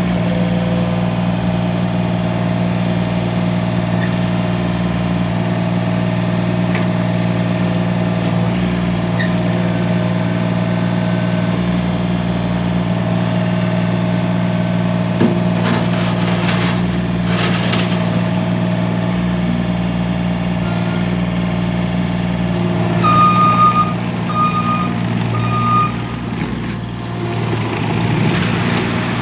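3-cylinder Yanmar diesel engine of a Gehl RT105 compact track loader running steadily. Near the end, its backup alarm beeps three times as the machine reverses.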